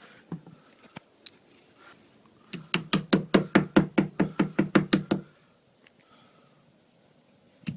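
Hammer driving plastic slide glides into the bottom edge of an IKEA Malm dresser's particleboard frame. A few single taps come first, then a quick run of about fifteen strikes, roughly six a second, lasting nearly three seconds. More strikes start again right at the end.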